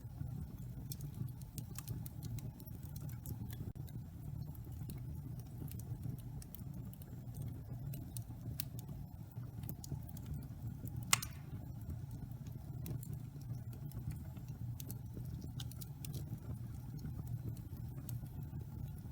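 Wood fire burning in a fireplace: a steady low rumble of the flames with scattered small crackles, and one sharper, louder pop about halfway through.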